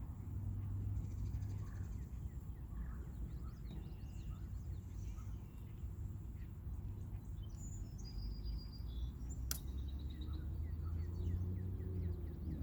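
Birds chirping now and then over a steady low rumble, with one sharp click about nine and a half seconds in.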